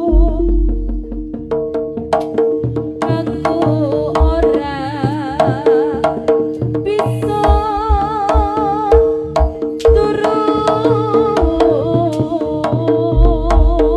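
Live jaranan music: kendang hand drums playing a busy rhythm over a gamelan-style ensemble with held metallic tones and a wavering melody line. Deep low strokes come near the start, in the middle and near the end.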